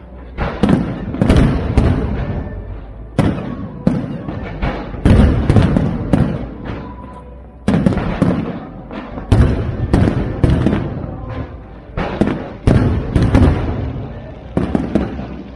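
Aerial fireworks shells bursting in a rapid run, about one or two booms a second. Each boom trails off in a short rumble.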